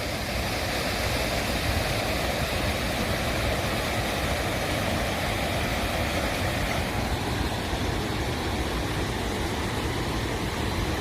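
Water running steadily in a natural stream, an even noise without breaks.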